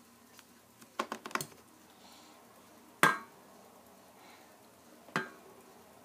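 Hard plastic clicks and clacks of a Lego-brick door on a toy vending machine being handled: a quick cluster of clicks about a second in, one sharp clack about three seconds in, and another near the end.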